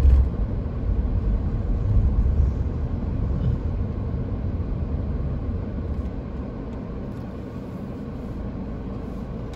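Car driving, heard from inside the cabin: a steady low rumble of tyres and engine that eases off over the last few seconds.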